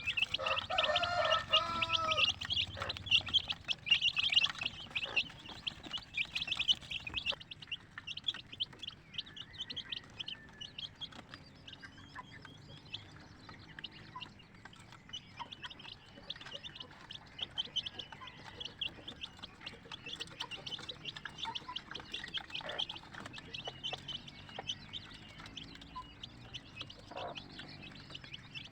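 Aseel x native crossbred chicks peeping continuously, a steady stream of short high-pitched peeps, louder for the first several seconds and fainter after. In the first few seconds a lower, repeated call from another bird sounds over them.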